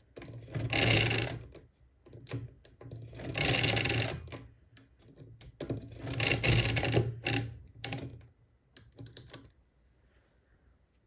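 Odhner Model 8 pinwheel calculator worked by hand: three turns of the crank, each about a second of clattering gears, with single clicks between them. Near the end comes a quick run of clicks as the result register is cleared.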